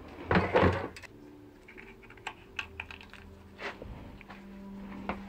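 Scattered light clicks and taps of things being handled, with a short clatter about half a second in, over a faint steady hum.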